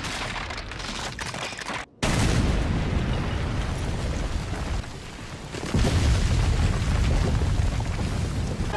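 Cartoon sound effects of a deep rumbling blast: a lower rumble, a moment's hush, then a sudden loud explosive rumble about two seconds in that eases and swells again about six seconds in.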